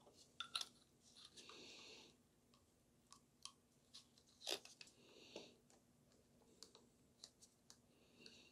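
Faint handling noises of small gearbox parts: scattered light clicks and taps and a few brief rustles, with one sharper click about halfway, as a plastic piston is slid into an aluminium cylinder and the cylinder is set into a clear plastic gearbox shell.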